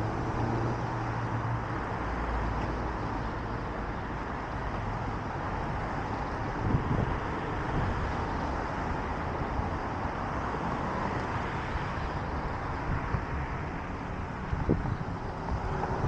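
Steady downtown street traffic noise, with a low engine hum from a nearby vehicle in the first couple of seconds.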